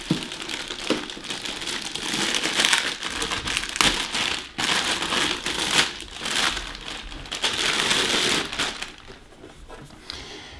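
Clear plastic packaging bag crinkling and crackling as it is pulled and worked off an electronics unit, quieter near the end.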